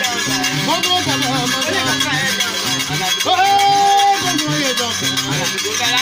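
West African gourd harp with a metal jingle plate, plucked in a repeating pattern with the plate buzzing along. A voice sings over it, holding one long note about three seconds in.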